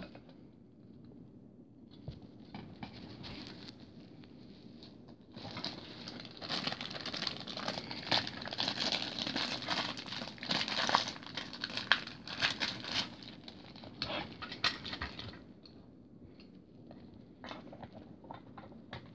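Clear plastic packaging being handled and pulled off, crinkling and rustling with sharp crackles. It is light at first, becomes dense and loud for about ten seconds in the middle, then eases off again.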